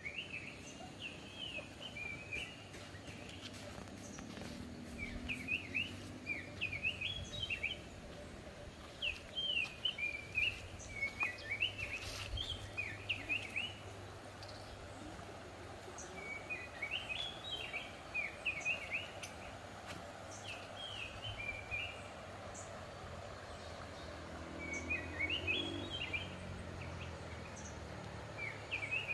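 A songbird singing in repeated bouts of quick, jumbled chirps, each bout lasting a few seconds with short pauses between, over a steady low outdoor hum.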